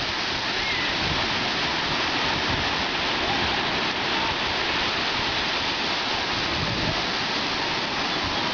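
Ocean surf: waves breaking and washing in a steady, unbroken rush.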